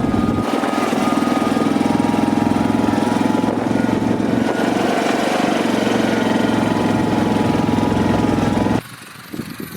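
A motor or engine running steadily at a constant speed with a fast, even pulsing, cutting off abruptly near the end.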